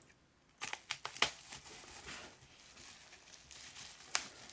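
Scissors cutting through plastic bubble wrap: a few quick snips about half a second in, then the wrap crinkling as it is handled, with one more sharp click near the end.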